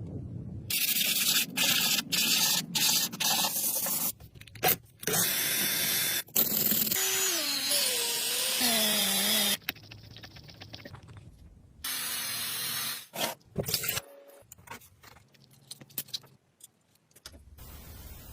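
Tool work on metal in short, abruptly cut clips: scraping and grinding noise, with a wavering whine from about seven to nine and a half seconds in.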